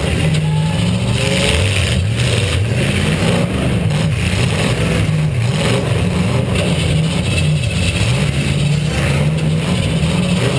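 Demolition derby car's V8 engine revving up and down, heard from on board, with the pitch rising and falling every second or so.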